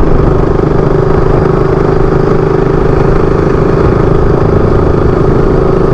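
KTM RC 200's single-cylinder engine running at a steady cruise, its note holding level without revving up or down, over a heavy rumble of wind on the microphone.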